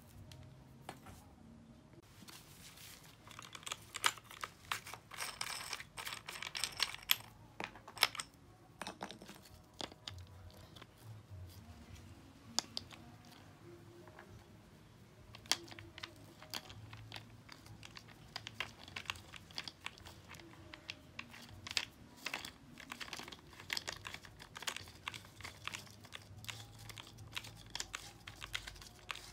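Quiet, scattered clicks, taps and rustling of gloved hands handling an angle grinder and fitting a grinding stone onto it; the grinder is not running.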